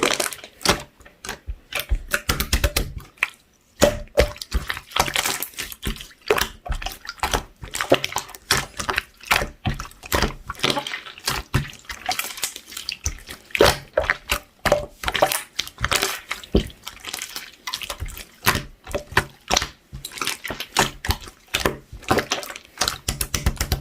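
Clear blue slime being squished, stretched and folded by hand, with a dense run of wet, sticky pops and clicks.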